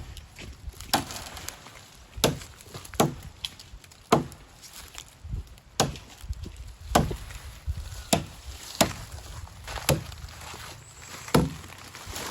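Repeated chopping strikes, about a dozen irregularly spaced at roughly one a second.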